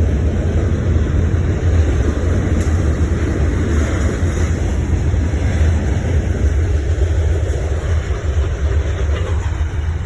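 CSX freight train passing, a steady low rumble.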